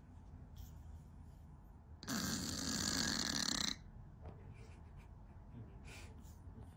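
A sleeping cat snoring: one long snore about two seconds in, lasting about a second and a half, with faint breathing noise around it.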